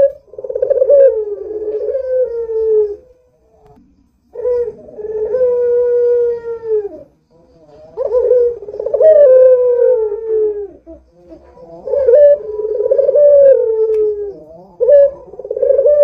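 A puter (domestic ringneck dove) cooing in full voice. It gives about four long, wavering coos of roughly three seconds each, with short breaks between them.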